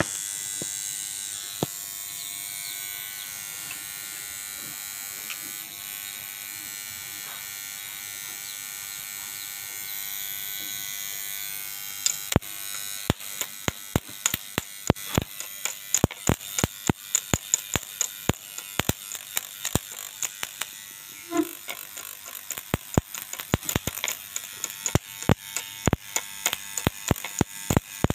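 Homemade welder built from a salvaged amplifier transformer humming with a steady electrical buzz. About halfway through, an irregular run of sharp cracking snaps starts, several a second, typical of the welding rod striking sparks as it touches the metal.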